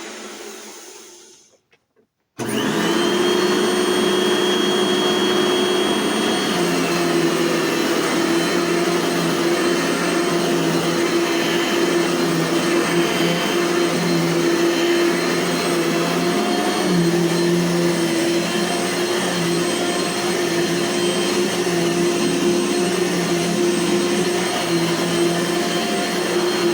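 A Dirt Devil upright vacuum cleaner's motor spins down and stops. About two seconds in, a Dirt Devil upright is switched on: its motor winds up quickly, then runs loud and steady.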